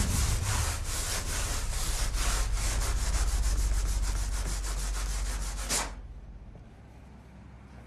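Rapid, repeated scratching strokes over a steady low rumble. The scratching swells briefly and stops abruptly about six seconds in, leaving a faint low hum.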